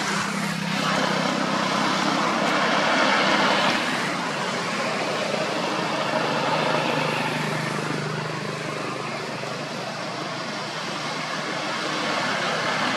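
Road traffic: a vehicle's rushing engine and tyre noise swells over the first few seconds, eases off, then builds again near the end, over a steady low engine hum.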